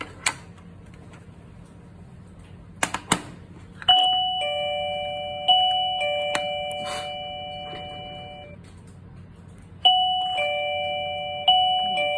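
XINHUI 8517G wireless doorbell playing its two-note ding-dong chime, each high-then-lower pair of notes ringing and fading. The ding-dong sounds twice in a row about four seconds in, and again twice in a row near the end. A few sharp clicks come before the first chime.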